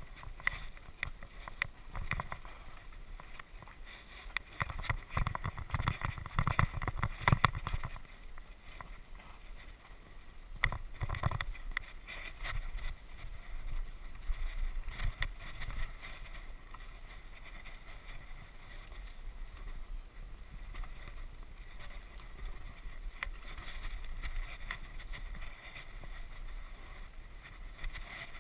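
Mountain bike riding fast down a dirt singletrack, heard from a camera on the bike: a steady rush of wind on the microphone with the bike rattling and knocking over rough ground. The knocks are heaviest from about five to eight seconds in and again around eleven seconds.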